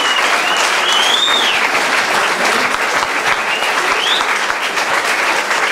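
Audience applauding steadily after a sung ballad, with a few short whistles rising and falling over the clapping.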